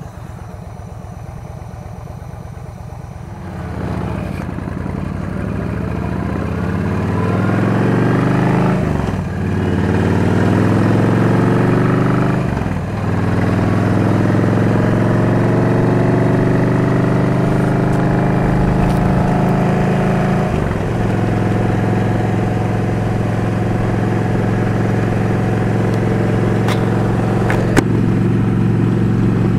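Yamaha V Star 1300's V-twin engine pulling away from a stop and accelerating. It rises in pitch with a brief drop at each of several upshifts, then settles into a steady cruise.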